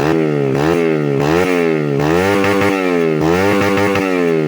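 115cc underbone (bebek) motorcycle engine being revved in repeated quick throttle blips, the pitch rising and falling about five times, then dropping back toward idle near the end.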